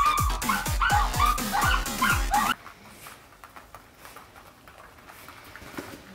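Toy poodle whining and yipping, over music with a deep repeating bass beat. Both stop abruptly about two and a half seconds in, leaving only faint room sound.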